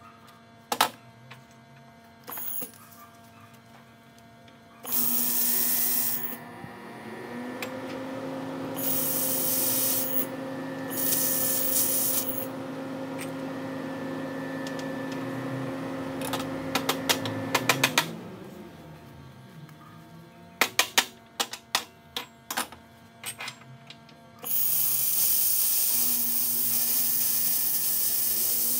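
Handheld laser welder at work on carbon steel, melting a stripped E6013 electrode core into the joint. Bursts of shielding-gas hiss come from the torch, and a machine hum rises in pitch, holds for about ten seconds, then winds down. Two runs of sharp crackling pops come in the second half.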